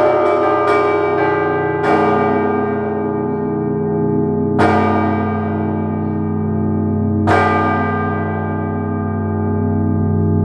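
Church bells ringing: quick strikes of smaller bells die away in the first second. A heavier bell then strikes three times, about two and a half seconds apart, each stroke ringing on over a steady deep hum.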